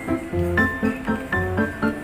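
Background music: pitched instrumental notes changing every few tenths of a second over a steady pulse.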